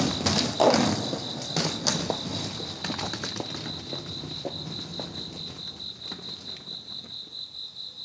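Crickets chirping in a steady, evenly pulsing trill. A few scuffs and knocks sound in the first couple of seconds, then the chirping carries on alone, slowly getting quieter.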